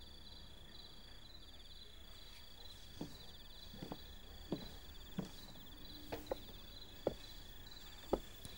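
Crickets trilling steadily, and from about three seconds in a slow series of footsteps, heeled boots knocking across a wooden porch and down wooden steps, about eight or nine steps.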